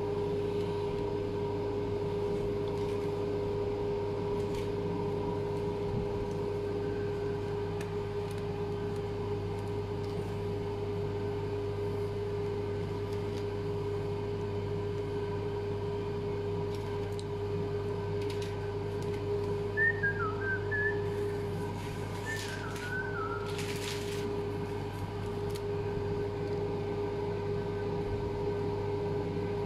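Steady humming drone of the kitchen's air conditioning, holding several constant tones. A few short warbling high notes come about twenty seconds in.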